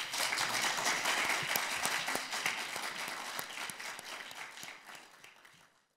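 Audience applauding, many hands clapping at once, fading out over the last couple of seconds.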